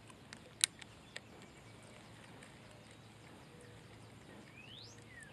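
Quiet pondside ambience with a few short, sharp clicks in the first second or so, the loudest about two-thirds of a second in. Near the end comes a single rising whistle from a bird.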